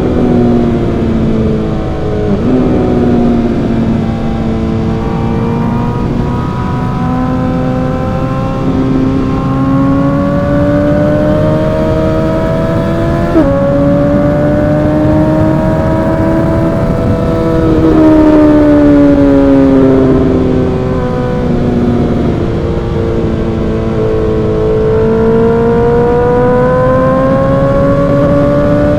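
Suzuki GSX-R1000 inline-four engine with an M4 aftermarket exhaust, heard from the bike while riding: the exhaust note climbs and falls in pitch as the rider accelerates, eases off and changes gear several times, over a steady rush of wind noise.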